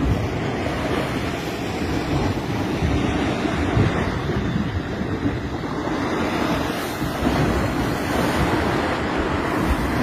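Sea water sloshing and lapping as choppy waves, with wind buffeting the microphone in a steady rumble.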